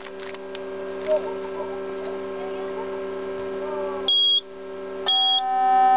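Steady electrical hum from the paging equipment. About four seconds in, the MicroVision 400Z nurse call unit gives a short high beep, then a second beep a second later followed by a louder steady tone: the alarm going off as the emergency pendant's signal is received.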